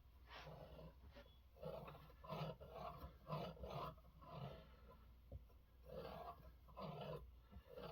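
Knife blade being stropped after sharpening: a run of faint, short rubbing strokes, about a dozen, with a pause a little after halfway.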